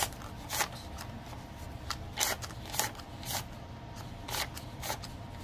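Paper dollar bills being counted by hand: a series of short, crisp rustles and flicks as the notes are peeled one by one off the stack, at an uneven pace.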